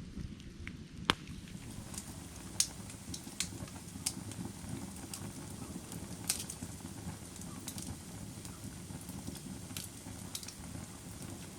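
Burning firewood crackling and popping: sharp snaps scattered at irregular moments, the loudest about a second in, at two and a half seconds and at six seconds, over a steady low rumble of the flames.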